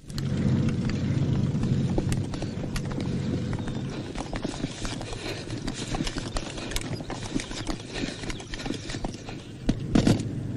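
A group of soldiers running hard, a dense patter of footfalls and rattling equipment over a low steady hum, with a louder cluster of knocks near the end.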